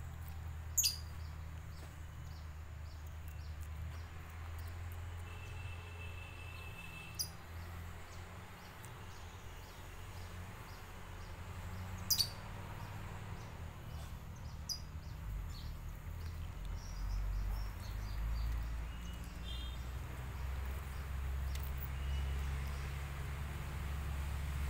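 Outdoor ambience: a steady low rumble under high chirping that repeats a few times a second, with a handful of sharp clicks, the loudest about a second in and about twelve seconds in.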